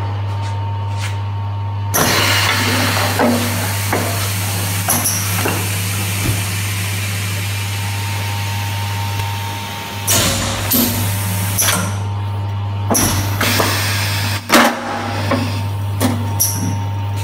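Newbilt vinyl record press working through a pressing cycle: a steady low machine hum, broken by sharp clicks, clunks and short hisses as the mould closes and opens. The hum briefly drops out twice.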